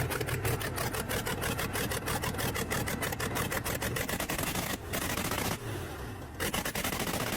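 Freshly overhauled inline-six diesel engine from a bulldozer running after a successful start, with a rapid, even diesel clatter of firing knocks over a low drone. The sound drops and breaks up after about four and a half seconds.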